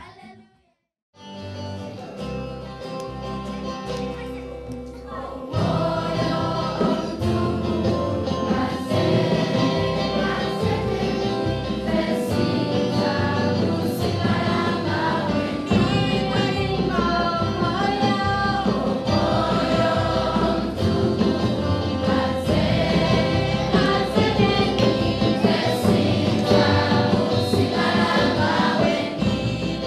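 Children's choir singing gospel music, accompanied by drums. It starts about a second in after a brief silence and grows fuller and louder about five seconds in.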